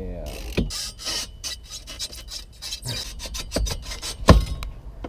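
Steel roll-cage bar scraping and rubbing in a run of short, irregular strokes as it is worked out through the car's door opening. A single sharp knock comes about four seconds in.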